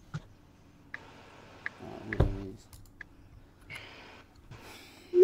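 A few light, sharp clicks, spaced roughly a second apart, with a brief hummed voice sound about two seconds in.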